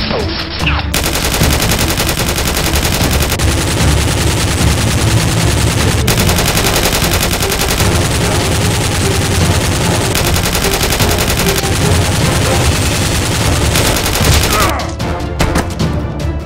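Dubbed sustained rapid gunfire, like a machine gun firing continuously, over background music. The firing stops about a second and a half before the end, leaving the music.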